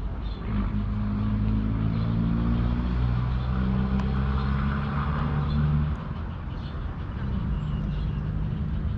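A motor vehicle engine running steadily. Its low hum shifts pitch a few times and drops in level about six seconds in.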